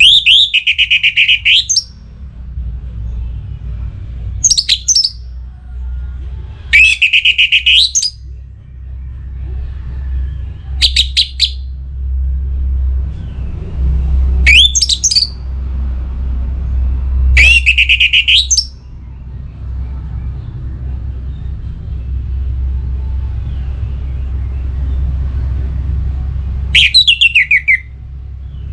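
Orange-headed thrush (anis merah) singing in short, loud, rapid-note phrases, seven of them, with a long pause before the last one, over a steady low rumble.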